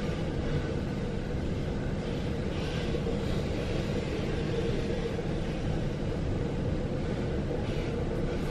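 Freight train wagons rolling past close by, a steady rumble of wheels on rail heard through a passenger carriage window, with a steady hum running under it.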